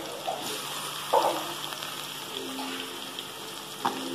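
Chopped onions and green chillies sizzling steadily in hot oil in a metal kadai. There is a louder short clatter about a second in and another near the end, as chopped tomatoes go into the pan.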